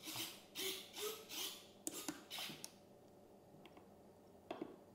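Small RC servos in a foam EDF jet whirring in about five short bursts as the control surfaces and nose-wheel steering are moved from the transmitter, followed by a couple of faint clicks near the end.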